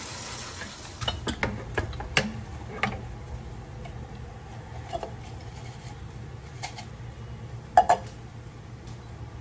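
Scattered clicks and knocks of dishes and utensils being handled at a kitchen sink, with the loudest double knock near the end. A tap runs briefly at the start.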